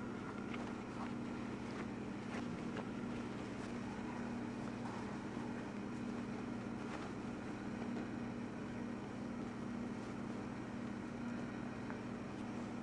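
A steady low hum throughout, with faint scattered rustles and soft ticks of a cotton sheet being pawed and tugged as kittens play in it.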